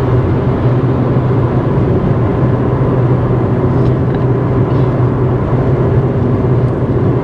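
Steady road and engine noise heard from inside a moving vehicle's cabin, a constant low hum under even rumble.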